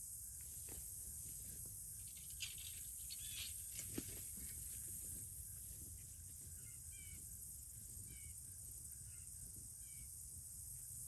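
Outdoor pasture ambience: a steady high drone of insects, with a bird chirping in short repeated calls through the second half and a few faint clicks and rustles in the first half.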